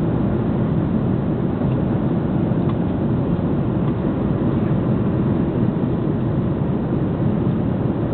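Steady low cabin noise of an Airbus A330 in flight, engine and airflow sound heard from a passenger seat inside the cabin.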